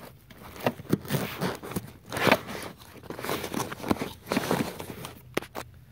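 Crinkling, crackling handling noise with scattered sharp clicks as a cordless ratchet is handled in its carrying case.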